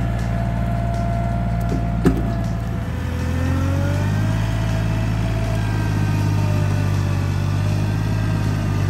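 John Deere tractor engine running under load, rising in pitch and level about three seconds in as the throttle comes up, with a single sharp knock about two seconds in.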